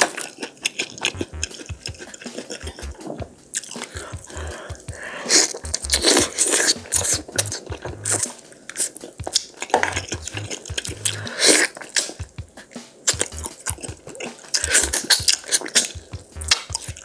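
Wet chewing and smacking of someone eating pork back-bone stew meat, in irregular bites and clicks.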